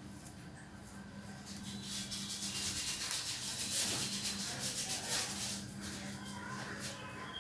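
Comb being drawn through dry, frizzy hair to detangle it: a run of short, dry rubbing strokes, loudest from about two to five seconds in.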